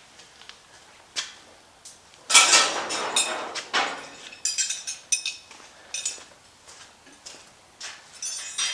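Metal work sounds: scattered clinks and knocks, with a longer scraping rattle about two seconds in and ringing metallic clinks near the end, as a truck's bed is unbolted and freed from the frame.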